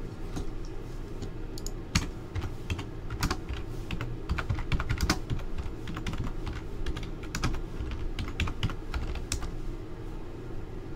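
Typing on a computer keyboard: irregular bursts of key clicks while a card is looked up, over a steady low hum.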